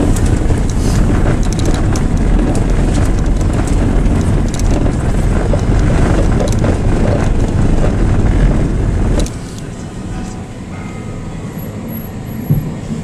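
Rumble and road noise of a vehicle being driven, heard from inside. About nine seconds in it drops suddenly to a quieter, steadier running sound.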